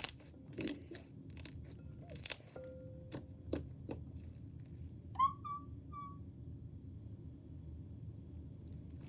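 Slime being squeezed and pulled by hand, giving scattered sticky clicks and small pops, with a brief high squeak about five seconds in.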